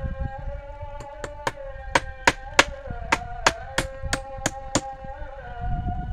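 Instrumental music with a held melody, and a quick run of about a dozen sharp clicks or knocks between about one and five seconds in, roughly three a second.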